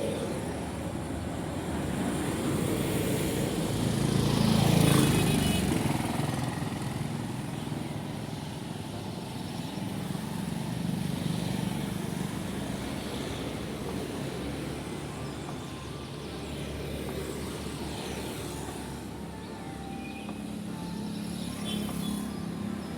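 Road traffic: engines running steadily, with one vehicle passing close about four seconds in, louder as it nears and its pitch dropping as it goes by.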